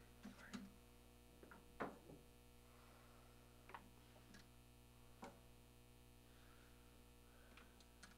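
Near silence: a steady low electrical hum with scattered faint clicks and knocks, the strongest about two seconds in.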